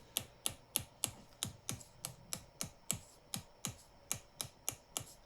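Rapid, even tapping of a chiropractic mallet on a chisel-like adjusting instrument held against the shoulder, about four strikes a second.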